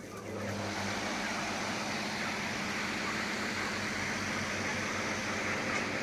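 Poultry-shed cooling fan running steadily, with an even rush of air over a low motor hum.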